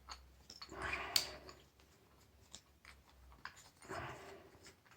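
Faint handling sounds of a metal door-closer being worked apart: a few light clicks and two soft scraping swells, about a second in and about four seconds in.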